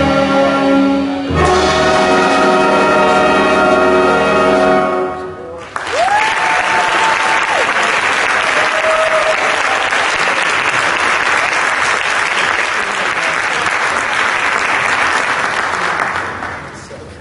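Student jazz band of brass, saxophones, piano and drums holding its final chord, struck again about a second in and cut off about five seconds in. Audience applause follows, with a whistle rising and held at its start, and fades near the end.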